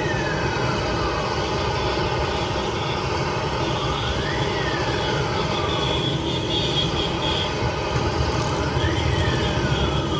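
Street traffic noise, with a siren wailing slowly up and down over it, one rise and fall about every four and a half seconds.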